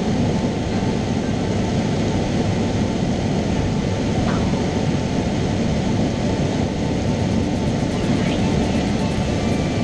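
Cessna 172's piston engine and propeller running steadily in cruise flight, heard from inside the cabin as an even, low drone.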